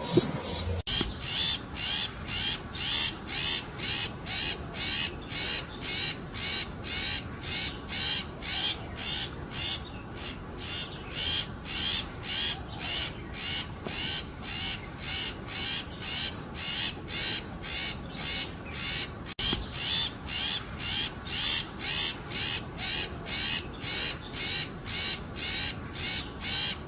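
Long-tailed shrike (cendet) giving a short, harsh call over and over, about twice a second in a steady rhythm.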